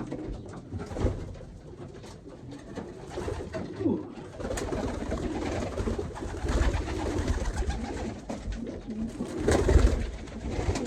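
Racing pigeons cooing in a loft, with thuds and knocks of handling around the nest boxes.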